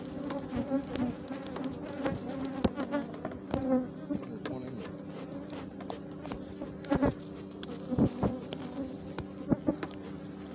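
A swarm of agitated, defensive honey bees buzzing around an opened hive: a steady drone with many sharp clicks scattered through it. The beekeeper takes the aggressive hive for Africanized.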